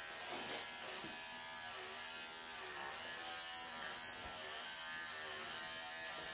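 Wahl electric pet clippers buzzing steadily as they shave through a Persian cat's long coat, the pitch wavering slightly as the blades work through the fur.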